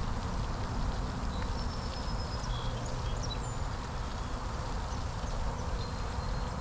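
Steady buzzing of a mass of Italian honeybees from a package being installed in a hive, under a low rumble, with a few short high bird chirps.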